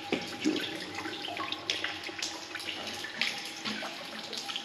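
Water leaking through a concrete tunnel ceiling, pouring and dripping down the wall with many small, irregular splashes.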